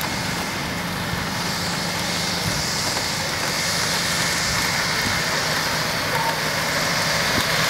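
Medical helicopter's turbine engine running on the ground: a steady rushing noise with a thin, high, unchanging whine and a low hum underneath.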